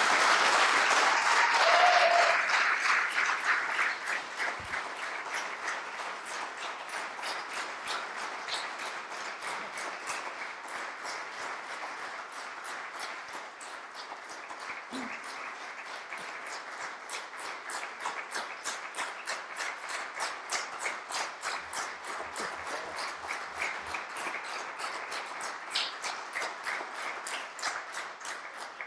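Audience applauding, loudest over the first few seconds, then clapping on steadily until it dies away near the end.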